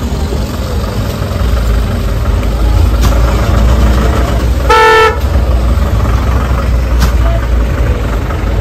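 Road traffic noise with one short honk of a vehicle horn about five seconds in.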